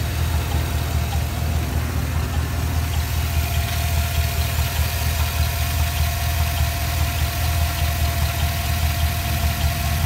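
Chevy Silverado 4.8 L Vortec V8 idling steadily under an open hood, with no belt squeak. The owner hears a constant tick that follows the rpm and suspects a bad lifter, a valve-train fault that comes with a cylinder 2 misfire.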